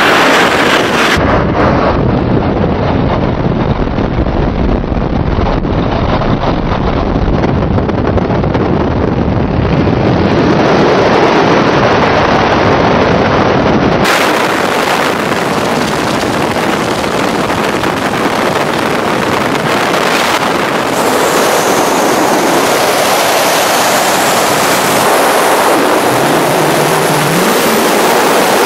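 Loud, steady roar of a small jump plane's engine and airflow through its open door, changing abruptly about halfway through to a brighter rushing of freefall wind over the microphone.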